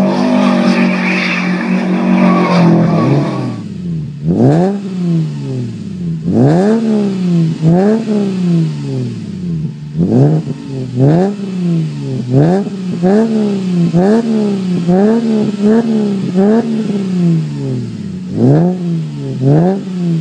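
A turbocharged Subaru Legacy 2.5GT engine held at high revs, then a Subaru Legacy 3.0 Spec B's flat-six with a full aftermarket exhaust revved in place in over a dozen quick blips, each a sharp rise and fall in pitch, about one a second.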